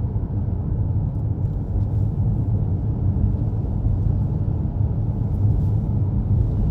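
Steady low rumble of a moving car's engine and road noise, heard from inside the cabin while driving.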